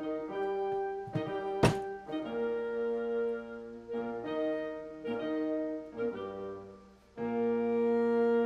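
Background piano music playing a slow run of held chords. A single sharp knock sounds about one and a half seconds in.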